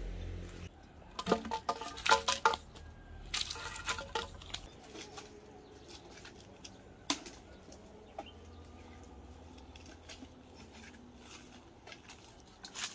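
Chickens clucking and squawking in two short bouts in the first few seconds, then sharp knocks of dry firewood sticks being picked up and handled.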